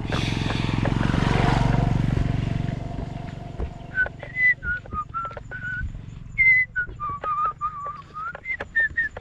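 A low engine-like rumble swells and fades over the first three seconds, then someone whistles a string of short high notes that slide and hop in pitch until the end.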